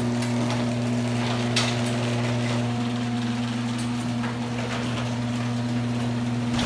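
Electric garage door opener running steadily as it lowers the door, a low motor hum with a few light clicks; the motor cuts off at the end.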